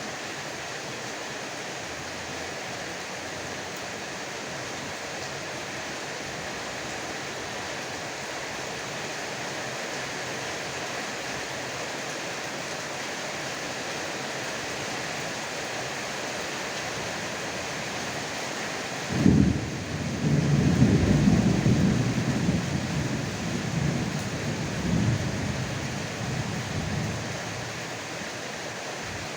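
Heavy rain falling steadily, then a sudden crack of close thunder about two-thirds of the way in, rolling into a loud low rumble that dies away over several seconds.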